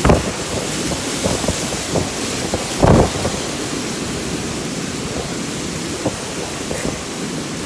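Heavy rain and strong wind of a summer thunderstorm, a loud steady rush, with short loud low bumps at the start and about three seconds in.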